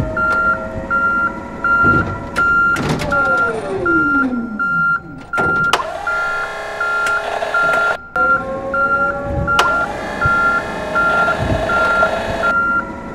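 Forklift reversing alarm beeping steadily, about three beeps a second, over a running engine. A whine falls in pitch for a couple of seconds, later rises again, and a few knocks sound.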